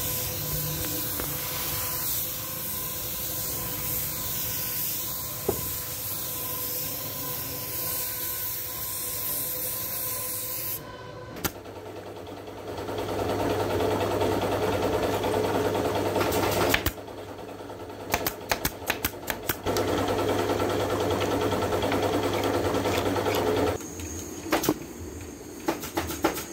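A compressed-air spray gun hissing steadily as it sprays finish for about the first ten seconds. Then, after a break, a pneumatic staple gun fires rapid strings of sharp shots, twice, between stretches of steady machine noise with a low hum.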